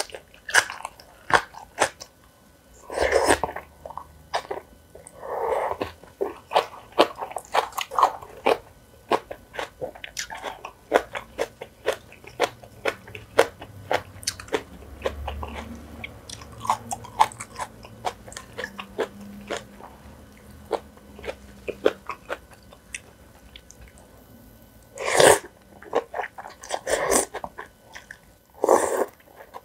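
Close-miked eating sounds: a person chewing and biting food, with many small crisp clicks and crunches, and a few louder, longer mouthfuls about three seconds in, around five seconds, and three near the end.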